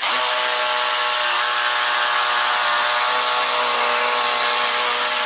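Electric jigsaw fitted with a sanding strip in place of its blade, running at steady speed and sanding the edge of a wooden board. It makes a steady motor whine over the hiss of abrasive on wood, starting suddenly at full speed.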